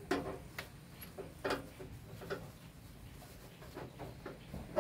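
Irregular metallic clicks and light knocks as a sheet-metal electronics casing is handled and a screwdriver works on its screws to take it apart.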